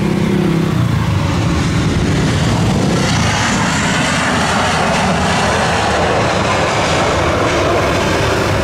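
Jet airliner's engines running as it passes low on landing approach; the roar broadens and grows harsher about three seconds in as the aircraft comes close.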